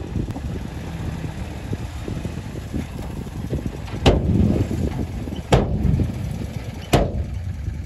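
Heavy excavator's diesel engine running with a steady low rumble, with three sharp bangs about a second and a half apart in the second half.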